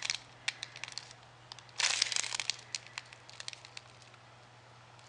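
Snack packaging crinkling as it is handled, in scattered crackles with a denser burst of rustling about two seconds in, then quieter.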